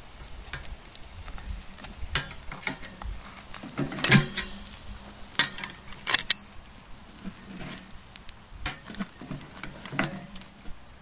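Metal grill tongs clicking and clanking against a stainless steel grate as a thick bone-in ribeye steak is gripped and flipped, with a faint sizzle from the meat over charcoal. The clanks come irregularly, a handful of sharp knocks over several seconds.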